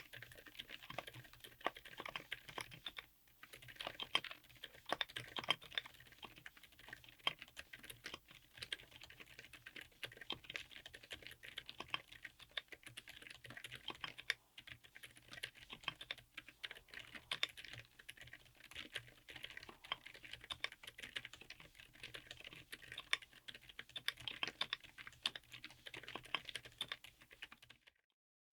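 Mechanical keyboard with Redragon A120 Stars silent tactile switches being typed on in fast, continuous runs of quiet, muted keystrokes. The typing pauses briefly about three seconds in and again about halfway, and cuts off abruptly near the end.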